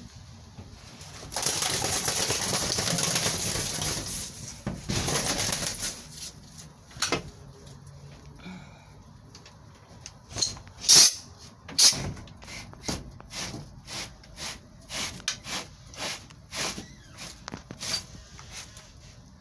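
A wild dove beating its wings in a cramped enclosure, mixed with rustling of plastic sheeting and newspaper, for several seconds, then a run of sharp knocks and taps, loudest twice around the middle.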